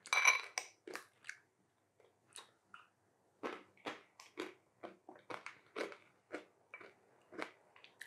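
Close-up chewing of a spoonful of custard and meringue topped with crisp caramel, the hard caramel crackling between the teeth in short crunches about two a second. A brief ringing clink, the loudest sound, right at the start.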